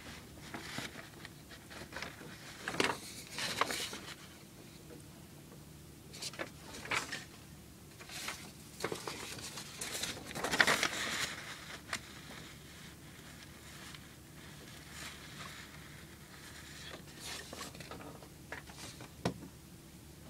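Faint, irregular rustling and scraping handling noises, loudest about three and eleven seconds in, over a low steady hum.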